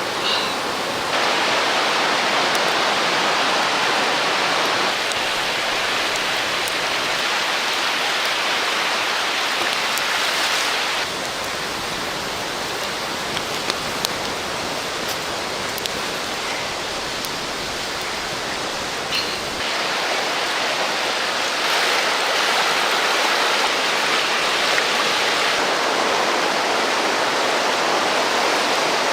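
River water rushing steadily. Its loudness and brightness shift abruptly several times, and a few faint clicks sound about halfway through.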